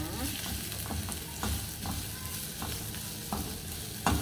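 Sliced onions sizzling in olive oil in a non-stick saucepan, being sautéed until soft. A spatula stirs them, scraping and knocking against the pan in irregular strokes, with one louder knock near the end.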